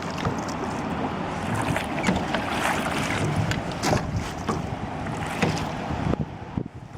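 Canoe paddling: a paddle splashing and knocking irregularly in the water over a steady rush of water and wind on the microphone, which drops off suddenly near the end.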